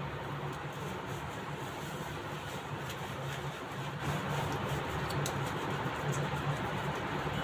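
Hands scrubbing a wet Labrador puppy's coat, soft rubbing and scratching with a few faint clicks, over a steady low hum and hiss.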